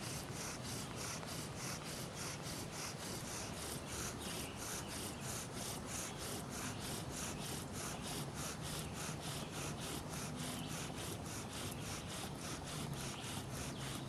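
Wooden bow drill in steady use: the spindle spins back and forth in the fireboard's notch with a dry wooden rasping at about four strokes a second, friction heating the wood to form a coal.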